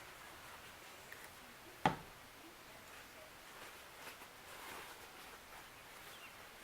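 A single sharp click or tap about two seconds in, over faint rustling of hands at work.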